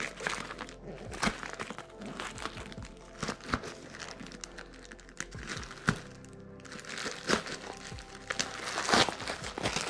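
Padded plastic mailer bag crinkling and crackling as it is handled and slit open with a knife, in many short sharp bursts, over soft background music.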